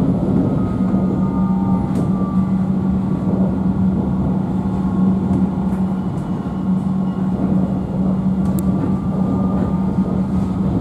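Alstom Citadis tram running along, heard from inside the passenger saloon: a steady low hum over rolling noise, with faint high whining tones that come and go.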